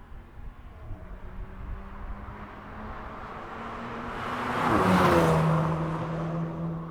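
A VW Golf GTI drives past. Its engine and tyres grow louder as it approaches, peak about five seconds in, and the engine note drops in pitch as it goes by, then fades as it pulls away.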